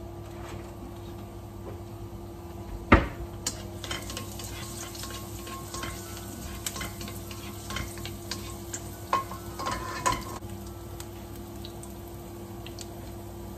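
Chopped garlic sizzling in hot oil in a wok, stirred with a spatula that scrapes and clicks against the pan from about three seconds in to about ten seconds in, with a loud knock about three seconds in. A steady hum runs underneath.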